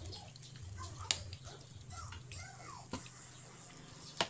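Metal ladle stirring chicken soup in a pot, the liquid sloshing, with three sharp clinks of the ladle against the pot; the loudest clink comes near the end.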